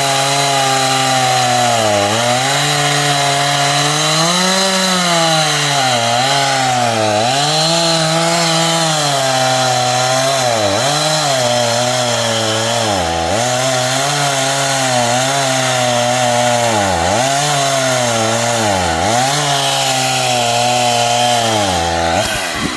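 Chainsaw cutting wood. The engine pitch dips again and again as the chain bogs in the cut, then rises back between cuts, and the engine falls away near the end.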